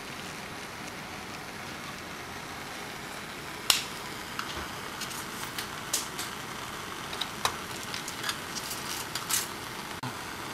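Small plastic clicks and taps of pipetting: a micropipette's plunger and tips, a tip box and sample tubes being handled while a bacterial culture is dispensed into sample tubes. It runs over a steady background hiss, with one sharp click a little under four seconds in and many small irregular clicks after it.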